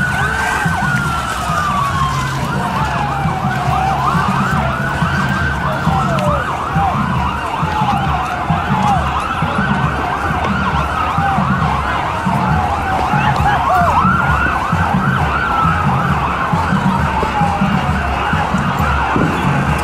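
Wailing siren of a police vehicle, rising quickly and falling slowly about every five seconds, over a low rumble and the rubbing of a phone covered or held against something.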